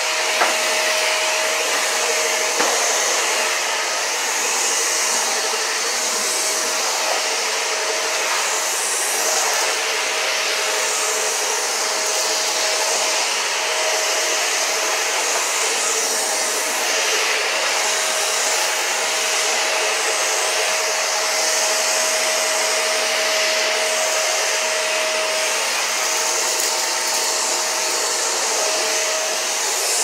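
Shark Duo Slim upright vacuum running steadily on a hardwood floor: a rushing hiss of air with a steady motor whine. There is a light click in the first second and another about two and a half seconds in.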